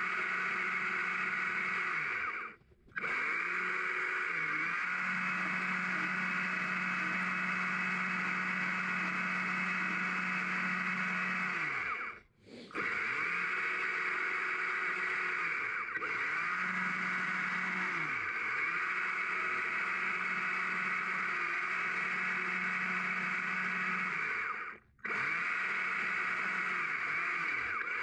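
Stihl chainsaw running at high speed while carving a log, its pitch dipping and climbing back several times as the throttle is eased and opened again. The sound breaks off abruptly for a moment three times.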